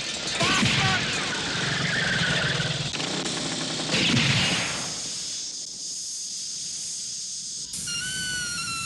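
Revolver shots fired at a motorcycle, the loudest one about four seconds in, which puncture and flatten its rear tyre. Near the end a thin, slowly falling whine comes in.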